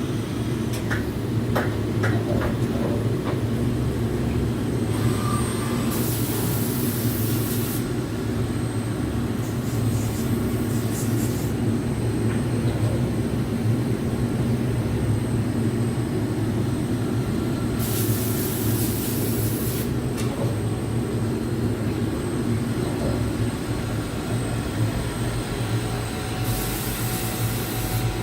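Mikron VCE 600 Pro vertical machining center running, a steady low machine drone with four bursts of high hiss, each about two seconds long.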